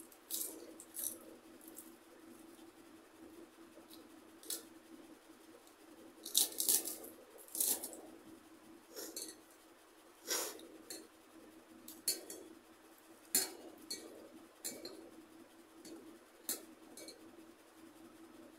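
Close-up eating sounds: irregular crisp crunches and mouth clicks as fried papad and rice are eaten by hand, with light clinks of fingers on a steel plate. A steady low hum runs underneath.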